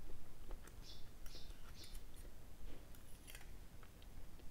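A metal fork and spoon clink and scrape against a ceramic plate during eating. There are scattered light clicks throughout and a few short scrapes about a second in.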